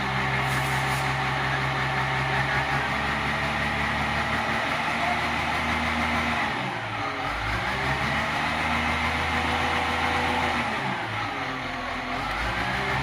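Caterpillar 950H wheel loader's diesel engine running unsteadily, its speed sagging and recovering twice, about halfway through and near the end. This is the unstable, misfire-like running that its fault codes trace to the atmospheric pressure sensor circuit.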